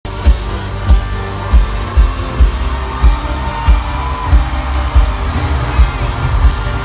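Live pop music played loud through an arena sound system, heard from within the audience, driven by a heavy kick drum beating a little under twice a second.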